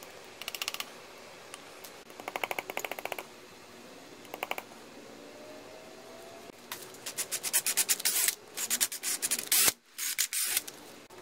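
Small metal hand tool scraping and clicking inside a drilled-out broken screw hole in an outboard powerhead, working at the thin-walled screw remnant. It comes in short bursts of rapid clicks, the longest and loudest run starting about two-thirds of the way in.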